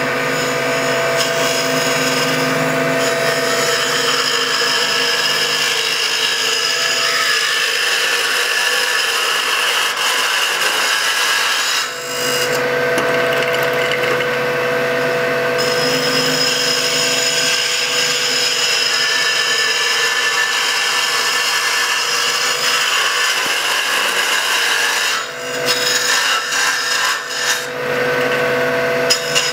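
A lathe duplicator's cutter shaving a spinning walnut blank as it follows the template from the center outward, over the steady hum of the lathe. Continuous cutting noise with a brief dip about twelve seconds in and a few more near the end.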